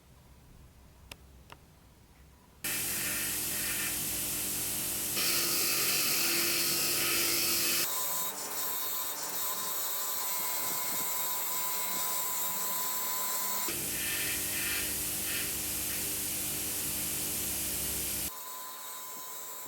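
Two faint clicks, then a power tool starts up about two and a half seconds in and runs with a loud, steady hiss and hum. The sound changes abruptly several times, as between separate takes of workshop tool work.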